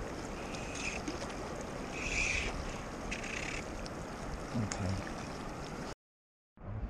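Steady rush of a fast river flowing around a wading angler, with wind on the microphone and a few brief higher hisses in the first few seconds. The sound cuts out for about half a second near the end.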